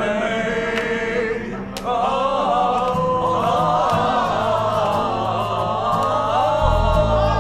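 Several voices singing together over a karaoke backing track, with a bass line coming in about three seconds in and getting stronger near the end.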